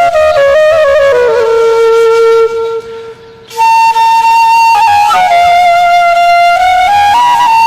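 Background flute music: a slow melody of long held notes moving in small steps, with a brief pause about three seconds in.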